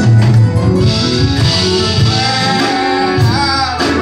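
Live gospel music: band accompaniment with guitar playing between the sung lines of a hymn, with a wavering held note in the second half.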